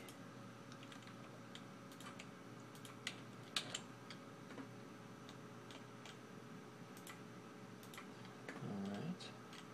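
Scattered, irregular clicks of a computer mouse as menus and a dropdown are clicked through, over a faint steady background hum.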